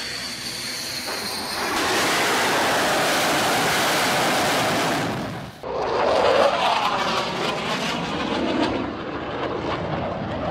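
Fighter jet engines roaring as the jets pass low overhead: a steady roar that swells about two seconds in, breaks off abruptly at a cut, then returns loud with a rising and falling sweep as several jets fly past.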